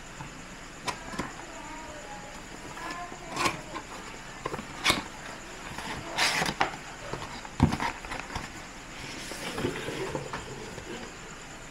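Cardboard product box being opened by hand: the lid and inner flap sliding and scraping, with a series of short knocks of cardboard on the table. Near the end, a soft fabric carry case rustles as it is lifted out.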